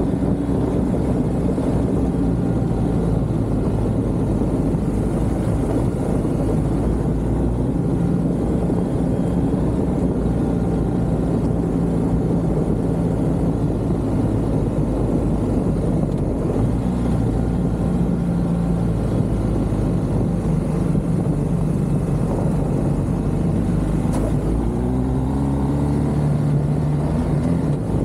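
A vehicle engine running steadily under road noise, its pitch shifting a few times and rising near the end.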